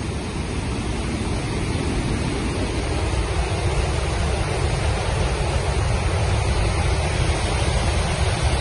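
Floodwater pouring through the open spillway gates of the Upper Wardha dam into the river below: a loud, steady rush of water during a heavy flood release.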